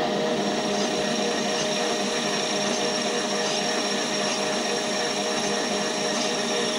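Small metal lathe running steadily under load while its cutting tool turns down an aluminum wheel spacer. The machine noise and a few held steady tones stay even, with no breaks in the cut.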